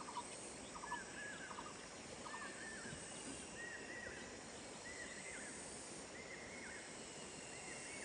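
A bird calling over and over, a short arched note roughly every second and a half, with quicker paired lower notes in the first couple of seconds. Faint, over a steady outdoor hiss.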